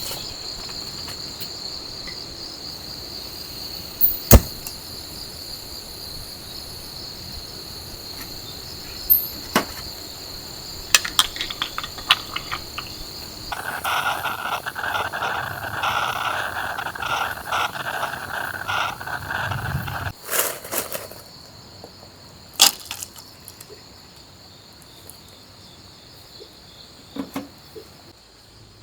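Insects trilling steadily at a high pitch, with scattered sharp clicks and knocks, and a hissing rush for several seconds about halfway through that stops abruptly.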